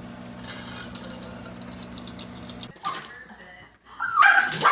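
A steady low hum with a faint trickle from a running kitchen tap, then, after a cut, a Yorkshire terrier's high-pitched yelps and whines, the loudest part.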